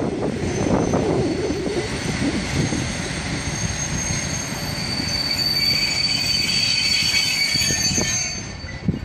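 Freight train of loaded log wagons rolling slowly through the rail yard with a low rumble, its wheels squealing on the rails. Several high steady squeals build from about the middle and fade just before the end.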